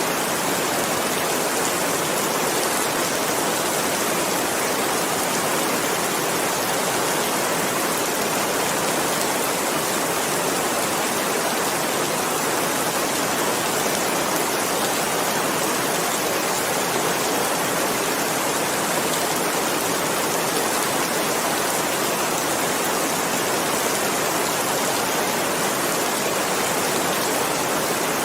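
Steady rainfall, an even hiss of rain with no breaks or single drops standing out.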